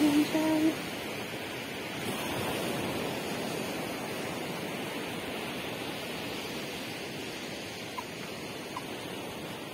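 Surf washing onto a pebble beach, a steady rushing noise, with a short pitched call in the first second.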